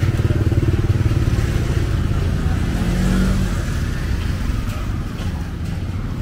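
Motorbike and tuk-tuk traffic on a wet city street, with a small motorbike engine running close by that fades after about four seconds.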